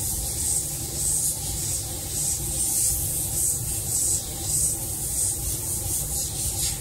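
An airbrush spraying silver nanowire solution onto a shadow mask gives a steady high air hiss that swells and eases about twice a second. A steady low rumble runs under it.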